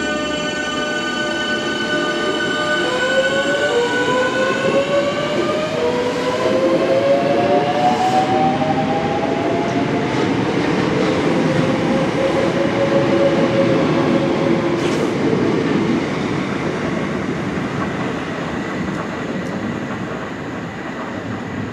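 Electric train pulling away, its traction motors whining in a series of rising steps over the rumble of the wheels. The whine climbs through the first half and fades as the train runs off.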